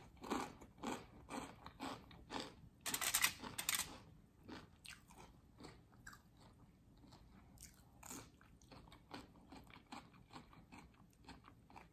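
Close-up chewing of a crispy fried corn-tortilla taco: crunchy bites and chews, loudest in the first four seconds, then softer chewing.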